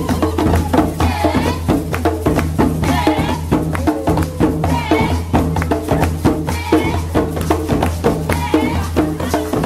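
Djembe hand drum beaten in a steady, driving rhythm, with voices singing along over it.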